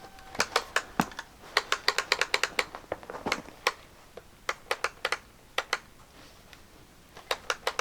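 Circular saw's trigger switch clicked over and over in irregular clusters, with no motor starting: the saw only works when it's warm.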